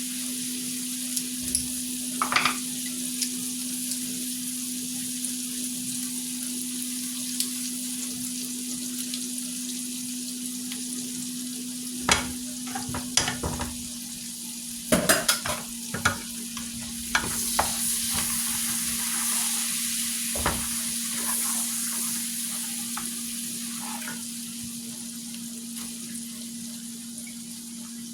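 Food sizzling steadily as it fries in a pan, over a steady low hum, with a few clinks and knocks of a utensil against the pan about halfway through.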